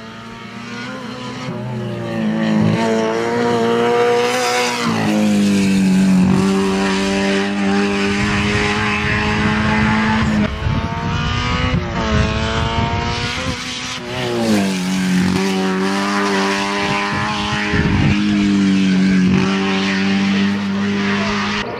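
Rally car engine running hard at high revs on the stage. The engine note climbs and holds, then drops sharply about five seconds in and again near fifteen seconds, with tyre and road noise underneath.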